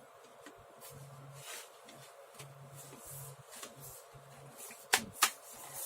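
Hands handling parts of an HP computer, with faint scattered rustling and scraping, then two sharp clicks close together near the end.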